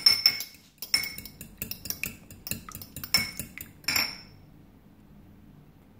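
A metal fork beating an egg in a ceramic ramekin: a quick, uneven run of clinks as the tines strike the bowl, each with a short ringing note. It stops about four seconds in.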